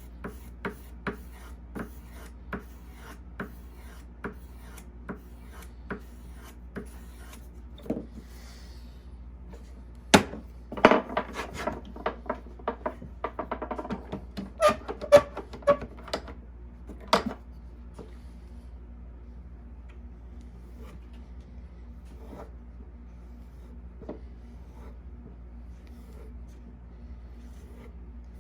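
Hook knife being honed by hand, the blade rubbed along a sharpening stick in short, even strokes, a little over one a second. About ten seconds in comes a louder, quicker run of scraping strokes with a few sharp knocks, lasting some seven seconds, after which only the odd faint stroke is heard.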